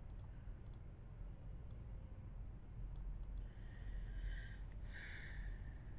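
Computer mouse clicking about five times in the first three and a half seconds, followed by a soft hiss, over a steady low hum.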